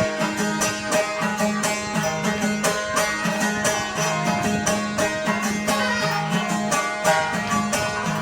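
Background instrumental music: quick plucked-string notes over a steady low drone.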